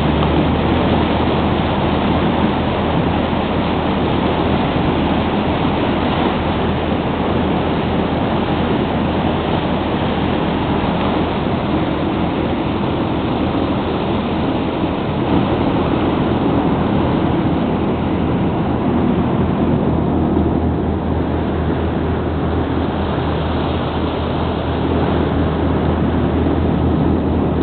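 Lobster boat's engine running steadily underway, a constant low drone, with water rushing along the hull and wake.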